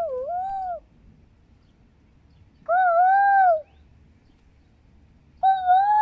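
A child imitating a koel's 'koo' call, three long hooting calls a couple of seconds apart, each arching up and down in pitch, made as a call to draw a bird's reply; no bird answers.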